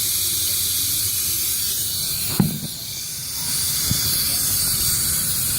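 Steady hiss of compressed air leaking out of a workshop air compressor that loses pressure right away, over a low steady rumble; the owners suspect the intake check valve is stuck open. A sharp knock about two and a half seconds in briefly drops the hiss, and a smaller click follows a second later.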